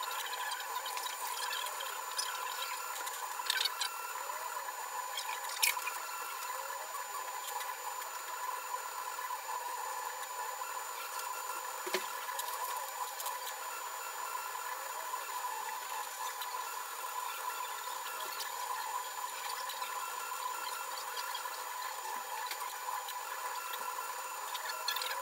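UP Plus 2 3D printer running a print: its stepper motors and fan give steady held tones under a fast, fluttering chatter, with a few brief clicks.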